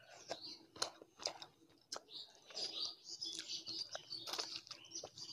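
Close-miked chewing of a mouthful of rice and fish curry, with many short wet clicks and smacks from the mouth.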